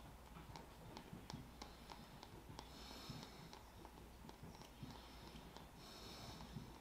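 Near silence: faint breathing through the nose, one breath about every three seconds, with scattered small clicks from handling small parts.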